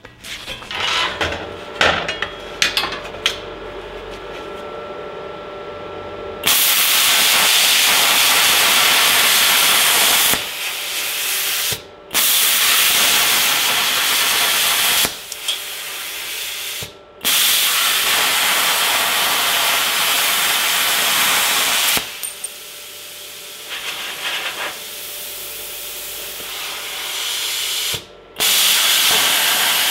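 Plasma cutter's arc cutting steel plate: a loud, steady hiss that starts about six seconds in and breaks off briefly several times. Before it, a few seconds of clicks and knocks over a quieter hum.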